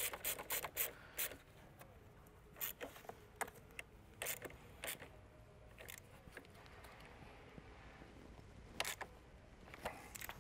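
Socket ratchet clicking as it tightens a car battery's negative terminal clamp, in short runs of quick clicks in the first five seconds and a few single clicks later.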